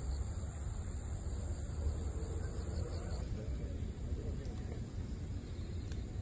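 Evening outdoor ambience: a steady high chirring of crickets that stops about halfway through, over a continuous low rumble, with faint voices in the background.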